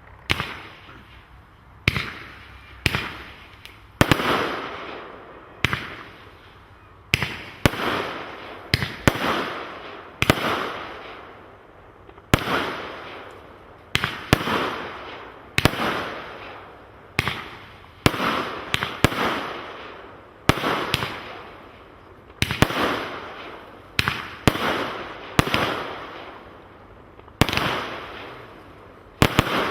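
Fireworks going off in a long series of sharp bangs, about one every second or two, each followed by a fading crackle.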